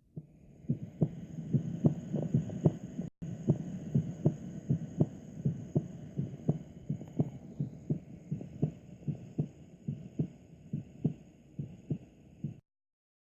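Human heartbeat heard through a stethoscope: a steady rhythm of low thumps, about two and a half a second, the first and second heart sounds made by the heart valves closing. The sound drops out for a moment about three seconds in and stops shortly before the end.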